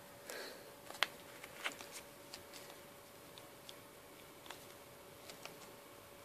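A scatter of light clicks and taps from clear plastic coin sleeves being handled, with a brief plastic rustle near the start and the sharpest click about a second in. A faint steady hum runs underneath.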